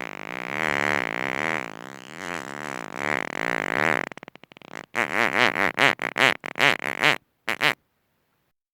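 A long fart with a wavering pitch, fading out about four seconds in. After a short pause comes a rapid sputtering fart of many short pops, then one last short puff.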